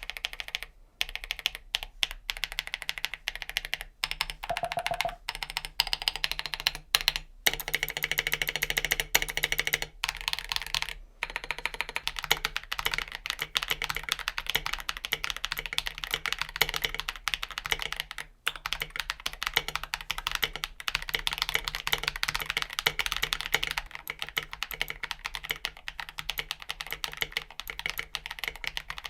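Rapid, continuous typing on a KBD67 mechanical keyboard fitted with Akko CS Silver linear switches and tall SA-profile keycaps: a dense run of keystroke clicks with a few brief pauses.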